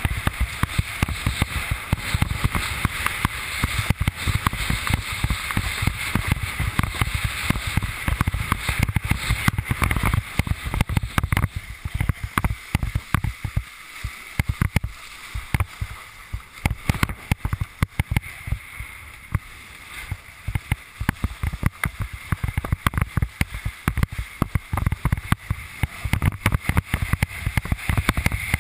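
Fanatic Falcon slalom windsurf board planing over choppy water: the hull slaps the chop in a rapid, uneven string of knocks over a rushing hiss of water and spray. The slapping thins out for several seconds midway, then picks up again.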